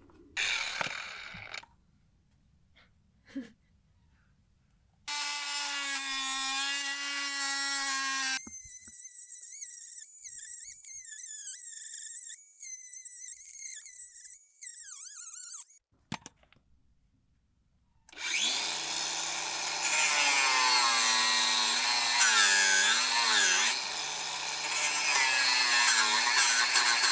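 Electric power tools running in several separate bursts. The last and loudest stretch has a motor tone whose pitch repeatedly dips and recovers, as if it were working under load.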